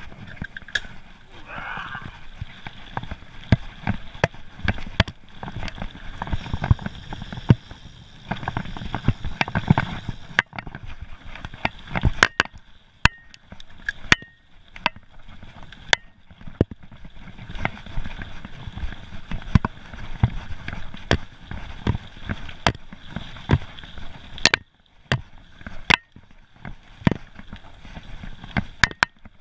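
Mountain bike riding fast over a rough gravel and dirt forest trail: the tyres rumble on the ground, with frequent sharp knocks and rattles as the bike jolts over bumps.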